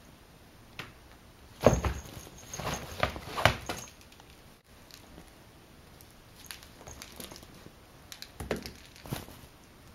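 A cat scuffling on a floor cushion against a fabric play tunnel: a flurry of bumps and rustles about two seconds in, then lighter taps and scratches near the end.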